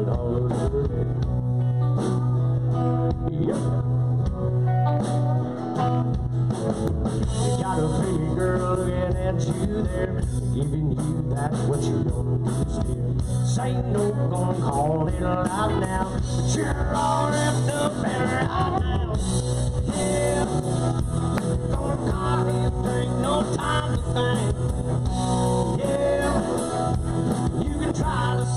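Live band music from a country-rock group, with electric guitar to the fore over a full band.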